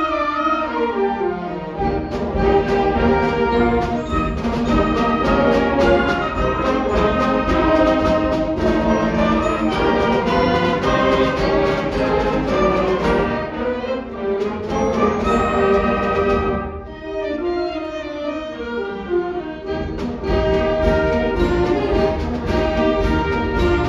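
A school concert band of brass, woodwinds and percussion playing together at full strength, with falling runs twice.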